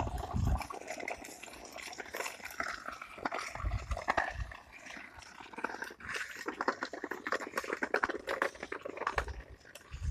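Two dogs on leashes sniffing and moving about, with many small clicks and scuffs and a few low thumps.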